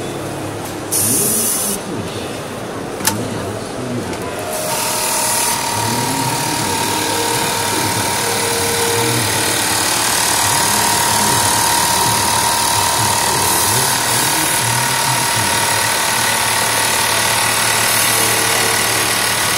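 Hikari HMS1310 computerized pattern sewing machine sewing a programmed stitch pattern. The needle runs at speed with a steady mechanical chatter and a constant whine that start about four or five seconds in. There is a sharp click shortly before.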